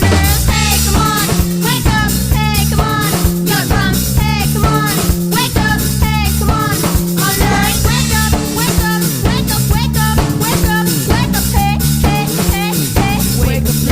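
Music: a song with a steady drum beat, a bass line and a wavering melodic line.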